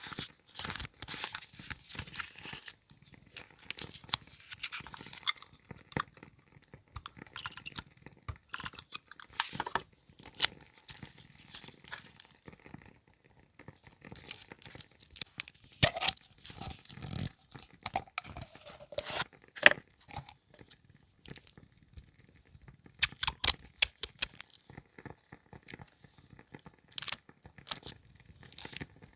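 Paper and journaling supplies handled close up: irregular tearing, rustling and crinkling with sharp clicks and taps, and a quick run of clicks about three quarters of the way through.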